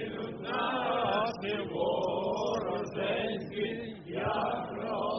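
A group of voices singing or chanting in Ukrainian, in phrases broken by short pauses.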